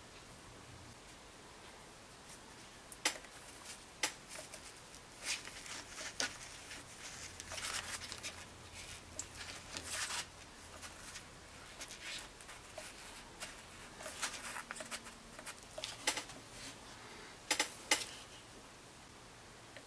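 Faint handling sounds of modeling clay being worked by hand on a sculpture: scattered light taps and clicks and short rubbing scrapes at irregular intervals, busiest in the middle.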